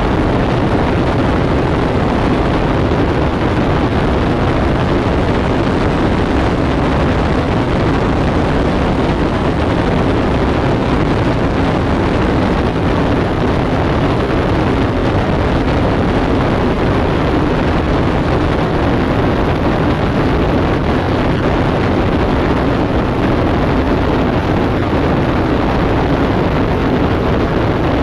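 Columbia 400's engine at takeoff power together with the rush of airflow over a camera mounted outside the plane: a loud, steady, dense noise through the takeoff roll and climb-out that hardly changes at lift-off.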